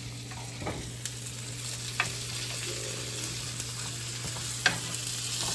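Chicken tenders frying in a pan on a gas stove: a steady sizzle, with a few sharp clicks along the way and a low steady hum underneath.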